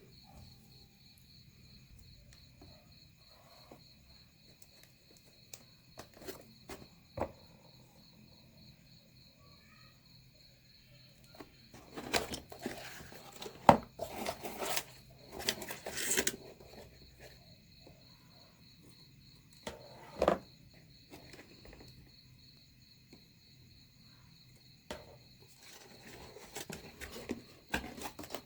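Scattered taps, knocks and rustles of cardboard and small materials being handled on a work surface, with a busier stretch about halfway through and a single sharp knock later. A steady, high-pitched pulsing tone like crickets runs underneath.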